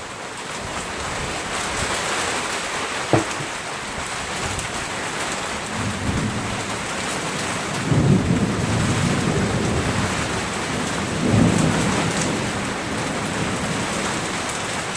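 Steady downpour of rain hissing, with rolling thunder that swells up several times, loudest about eight seconds in and again past eleven seconds. A single sharp click about three seconds in.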